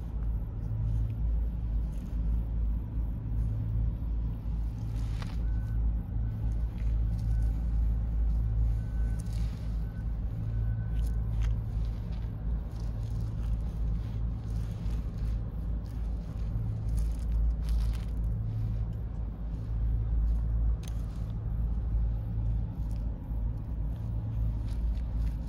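Black cat purring steadily while it is stroked, a low rumble that swells and eases about once a second with each breath. A few faint scratches sound over it.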